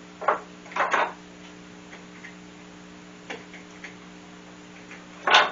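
A few short wooden knocks and clicks as the table's leg and pedestal parts are handled, with the loudest knock near the end. A steady electrical hum runs underneath.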